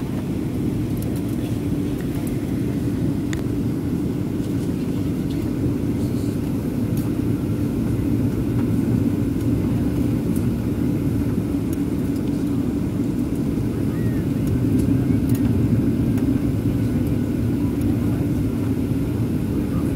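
Steady low roar of jet engines and rushing air heard inside the cabin of a Boeing 737-800 on approach, with a few faint ticks.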